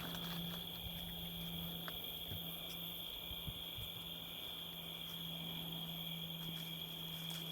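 Crickets chirping in a continuous, even trill, over a faint steady low hum.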